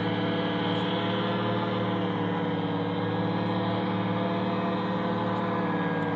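Motorboat engine droning steadily, a hum with many overtones.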